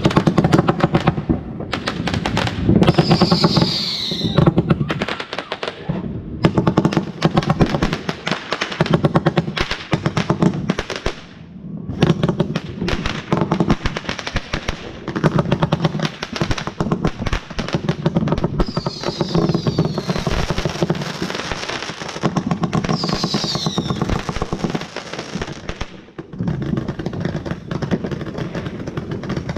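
Fireworks going off in a dense, continuous crackle of rapid bangs, with a short whistle falling in pitch three times.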